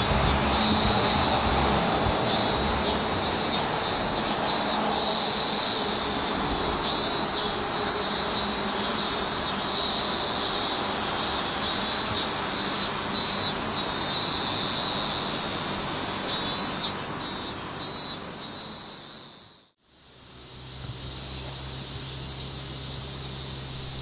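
Insects chirping: a steady high-pitched hiss with repeated short pulsed bursts. It fades out about twenty seconds in, leaving a low steady hum.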